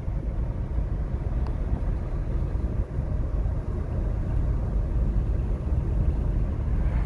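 A car driving along: a steady low rumble of road and engine noise.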